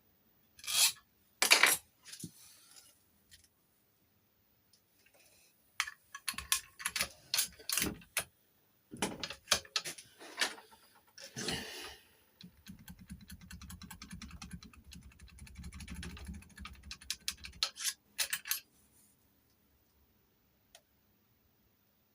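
Metal clicks and clinks of a steel key blank being worked in a Chubb lever lock and handled, with a stretch of low, dense rattling about halfway through.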